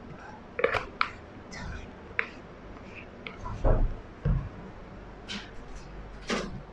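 A person moving about in a small room: scattered sharp clicks and knocks of handling, with two dull thumps near the middle.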